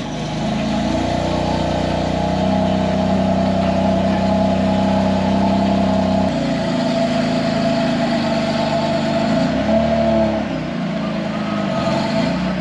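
BMW M4's twin-turbo straight-six engine running just after a start, idling and moving the car at low speed. Its note shifts about six seconds in and again near ten seconds.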